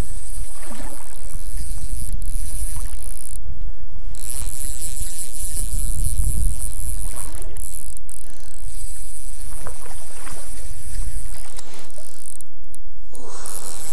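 Wind buffeting the microphone with a steady low rumble, over the hiss of a small river flowing over its bed.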